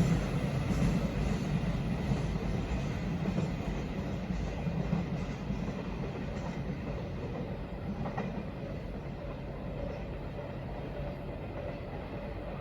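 A freight train rumbling past on the rails, loudest at first and then fading steadily as it draws away.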